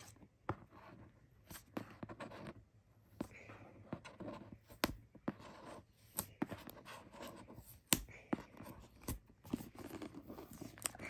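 A Samsung Galaxy Tab A8's cardboard retail box being worked open by hand: scratchy scraping and tearing, with scattered sharp clicks and taps, the loudest about 8 seconds in.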